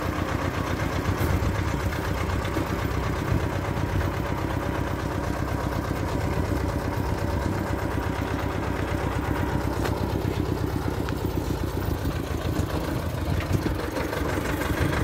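Farm tractor's diesel engine idling steadily close by.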